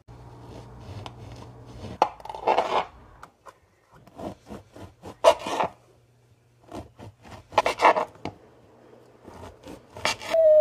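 Serrated bread knife sawing through a crusty sourdough loaf, the crust rasping and scraping in short, irregular strokes as the bread is cut into cubes.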